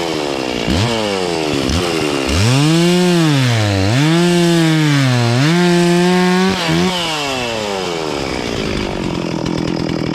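Two-stroke chainsaw cutting into a log, revving up and bogging down several times as the bar loads, its pitch sagging deeply in the cut; near the end it settles to a steadier, lower run. The owner judges the chain dull.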